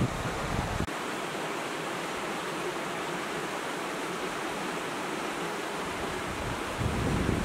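Wind buffeting the microphone over a steady rushing noise. The buffeting drops away suddenly about a second in and comes back near the end.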